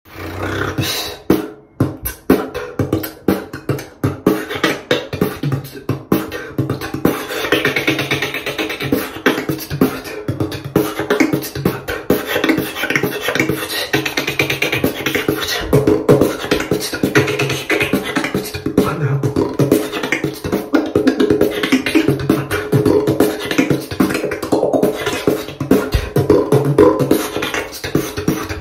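Solo freestyle beatboxing: a fast, dense rhythm of mouth-made drum sounds, with held pitched vocal tones woven underneath.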